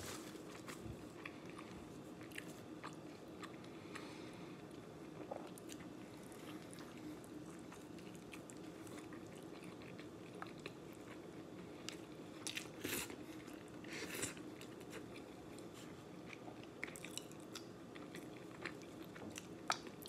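A person chewing a mouthful of burrito close to the microphone, with small wet mouth clicks and smacks, over a faint steady hum.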